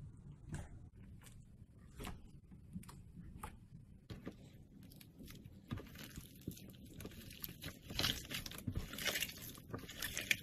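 Fingers pressing into glossy slime make a sticky pop roughly every three-quarters of a second. About four seconds in, this gives way to slime packed with white crunchy pieces being squeezed and pulled apart: a dense crunching and crackling that is loudest near the end.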